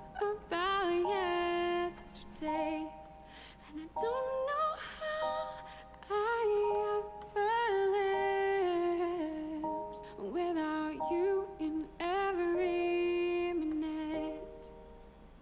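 Background pop music: a wordless female vocal melody over held chords.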